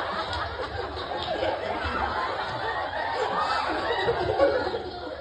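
A crowd laughing and chattering, with a man laughing into a microphone.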